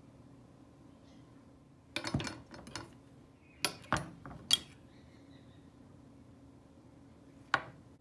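Steel kitchen knives set down on a wooden cutting board: a cluster of knocks and clinks about two seconds in, three sharper clinks around four seconds, and a last one near the end.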